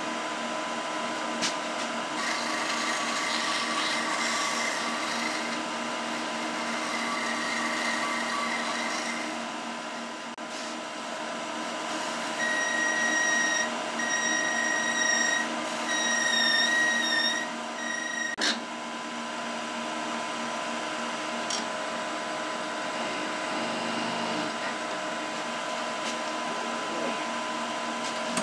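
Wood lathe running steadily, its motor giving a constant hum with a steady whine. Around the middle a high squeal comes in several short stretches, the paper towel rubbing on the spinning soft-wood piece as it applies sanding sealer, followed by a single sharp click.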